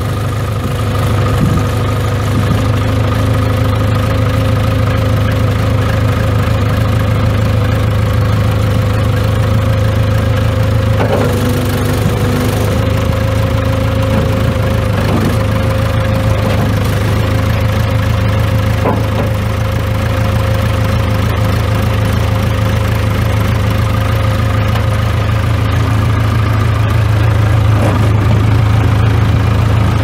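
1989 Case 580K backhoe's four-cylinder diesel engine idling steadily, with a few faint clicks over the engine note.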